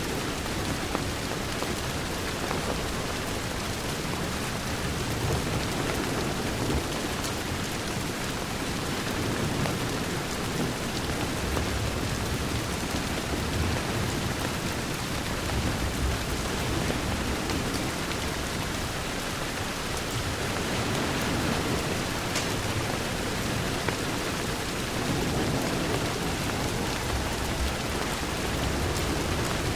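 Steady rain on a window, with a low rumble underneath and the occasional faint crackle of a wood fire.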